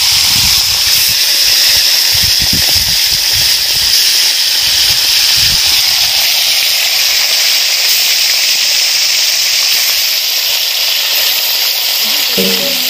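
Small fish frying in hot oil, with a steady loud sizzle throughout. A few low bumps come in the first several seconds.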